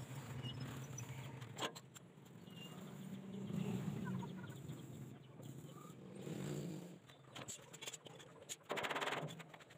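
Electric arc welding on a tricycle sidecar's tread-plate siding, in short bursts: a low buzz and crackle of the arc that stops and starts, with a brief harsher crackle near the end.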